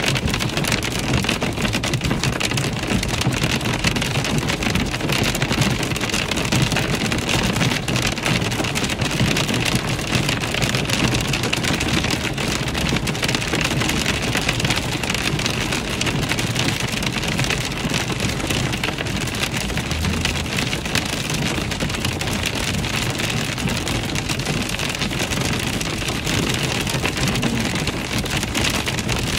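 Hail pelting a car's windshield and roof, heard from inside the cabin: a dense, steady clatter of countless small impacts that keeps up without a break.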